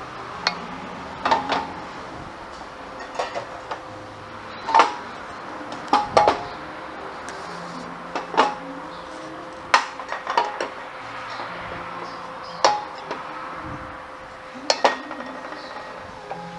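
Irregular sharp metallic clinks and knocks, about a dozen, some ringing briefly, from hands and tools handling the scooter's kickstarter shaft and transmission-cover parts while the shaft is oiled.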